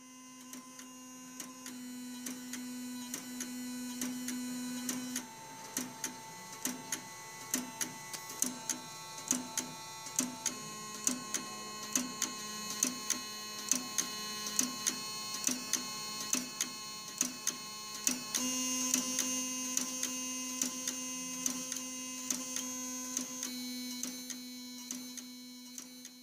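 Automatic Electric mechanical howler: its B relay, a buzzer, sounds a steady buzzing tone. For a stretch in the middle the pitch changes and relay clicks come about one and a half times a second as the slow-acting H and K relays step the rotary switch, then the steady buzz resumes. This is the machine behind the howler tone that a telephone exchange sends to a line left off the hook.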